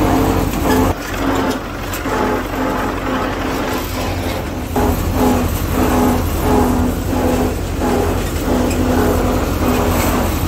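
Old off-road vehicle's engine running as it drives a rough dirt track, heard from inside the cab: a steady low rumble with a pitched drone that comes and goes about twice a second.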